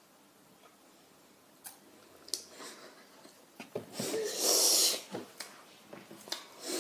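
A boy's sudden forceful burst of breath about four seconds in, lasting about a second, as he doubles over from an extreme-sour Warheads candy in his mouth. It is preceded by a few faint clicks and followed by softer breathy noises.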